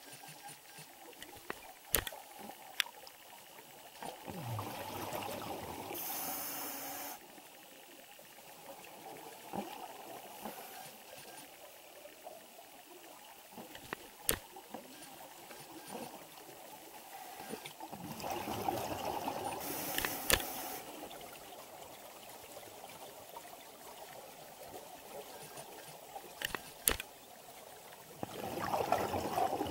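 Scuba regulator exhaust bubbles heard underwater: a diver exhales three times, each breath a few seconds of bubbling, about ten seconds apart. A few sharp clicks fall between the breaths.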